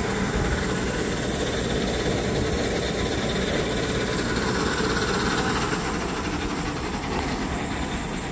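Heavy truck engine running steadily, a continuous low rumble with no breaks.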